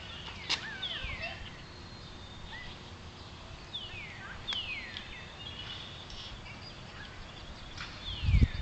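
A bird calling: pairs of clear whistles that slide down in pitch, given three times over faint outdoor background noise. A few low thumps near the end.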